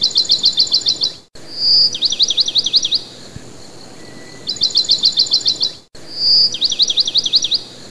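Birdsong: a fast, even run of about ten high chirps, then a short whistle and a run of sweeping notes. The same pair of phrases is heard twice, each cut off abruptly into silence, like a looped recording.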